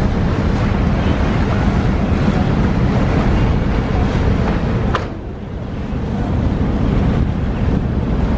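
Wind buffeting the microphone on the ferry's open deck, over the steady low drone of the ferry's engine and the rush of water past the hull. The sound dips briefly about five seconds in.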